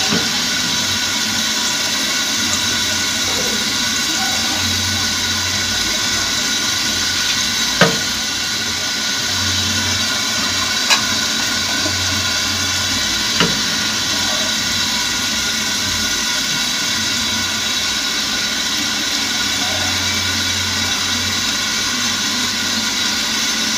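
Leftover battered fried chicken sizzling steadily in hot oil in a large aluminium wok as it is reheated. Three sharp clicks stand out, about a third of the way in and twice more a few seconds later.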